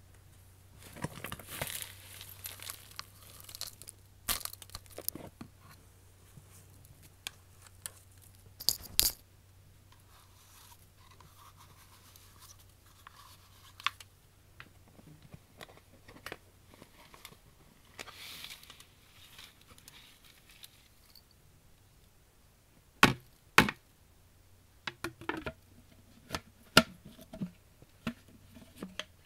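Intermittent crinkling and tearing handling noises, broken by sharp clicks and taps. The loudest are two sharp clicks about 23 seconds in, and several more follow near the end.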